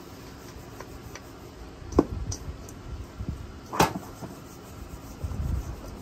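Stainless steel mixing bowl knocking and clinking against a wooden counter as onion rings are tossed in seasoned flour: two sharp knocks, about two seconds in and just before four seconds, among lighter ticks, with a low rumble near the end.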